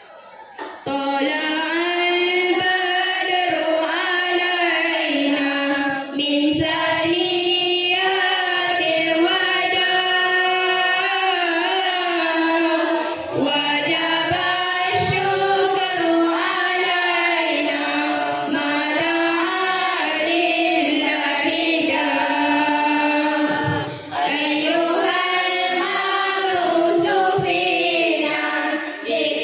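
A group of voices singing together, starting about a second in.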